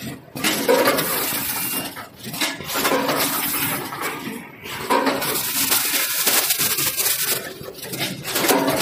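Pouch weighing and packing machine running: metallic clattering and hissing in repeated working cycles, with brief lulls every two to three seconds.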